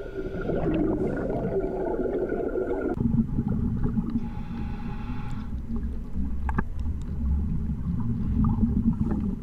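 Muffled underwater noise: a low rumble that changes character suddenly about three seconds in, with a short hiss between about four and five and a half seconds.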